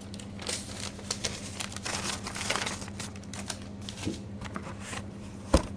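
Cardboard shipping carton and its packing being handled and opened: scattered crinkling, rustling and small clicks, with one sharp knock near the end.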